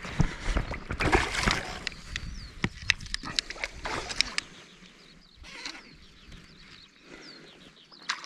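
Small rainbow trout thrashing and splashing at the surface as it is played in on a fly rod, with a run of irregular clicks and knocks; the splashing grows quieter after about four seconds.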